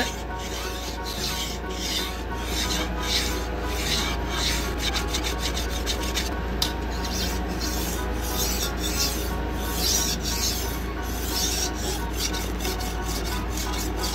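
Steel kitchen knife blade scraping back and forth across a coarse diamond sharpening stone, a steady rhythmic run of stroke after stroke.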